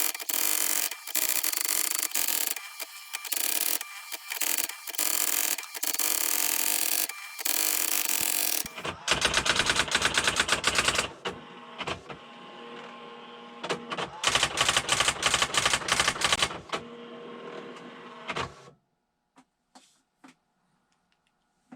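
Brother SX 4000 electronic typewriter printing its built-in self-demo page. The mechanism whirs in stretches broken by short pauses, then types in two fast rattling runs of character strikes. It stops about 19 seconds in, when the demo has finished.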